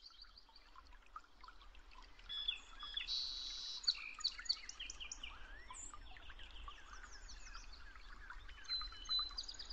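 Recorded birdsong from a nature sound track: many small birds chirping and calling in quick, overlapping short notes and gliding whistles. It fades in at the start and grows louder a couple of seconds in.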